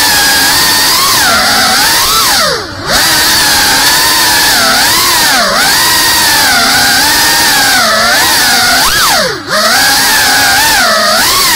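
FPV drone's brushless motors and propellers whining, the pitch rising and falling with every throttle change. Twice, about two and a half seconds in and again about nine seconds in, the throttle is chopped: the whine drops sharply and then climbs back.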